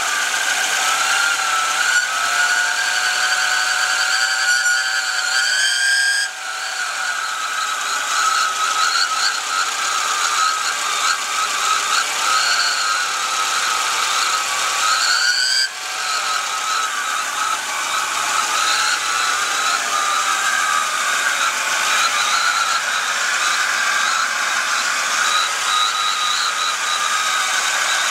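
Volvo 242 turbo four-cylinder engine running with a high, wavering whistle-like whine over it. The whine rises slightly, then drops off sharply about six seconds in and again near sixteen seconds. The whine is of unknown origin; the owner has found no shaft play in the turbocharger.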